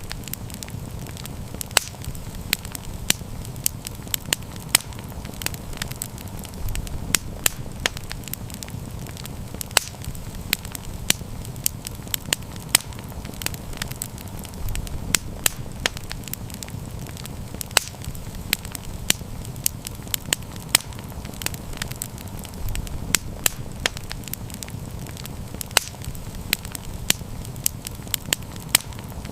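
Wood campfire burning and crackling: sharp irregular pops and snaps, several a second, over a steady low rumble of the flames.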